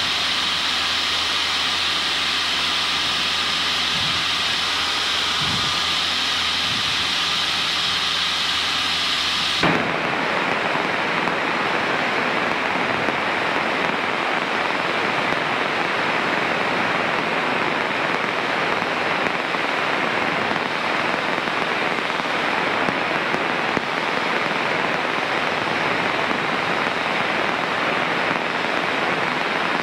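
Steady cockpit noise of a Cessna 152 in cruise, heard through the aircraft's audio feed. About ten seconds in it switches abruptly to an even radio static hiss, which carries on unchanged.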